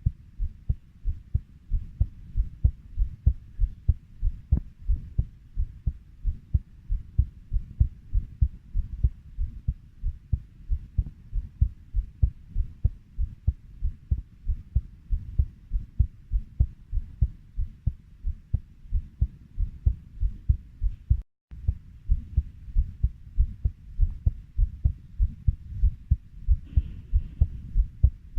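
Heartbeat at a steady 90 beats a minute, each beat a low double thump (lub-dub). The sound briefly cuts out once, about two-thirds of the way through.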